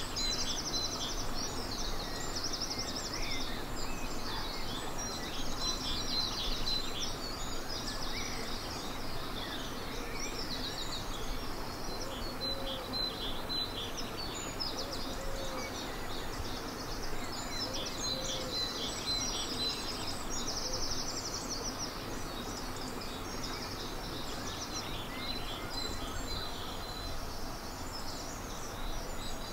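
Dawn chorus: several songbirds singing at once, with overlapping high trills and repeated phrases over a steady background hiss. The song thins out near the end.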